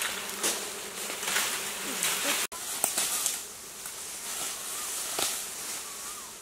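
Honeybees buzzing around their open comb hanging in bamboo, a faint steady hum with the odd bee swooping past, over a hissing rustle of bamboo leaves. The sound breaks off abruptly for an instant about two and a half seconds in.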